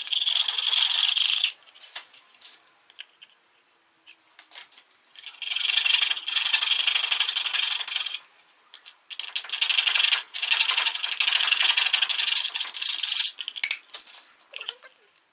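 Small metal hand file rasping back and forth on the edge of a slot cut in a PVC pipe wall, in three spells of quick strokes with quiet pauses between, the first one brief.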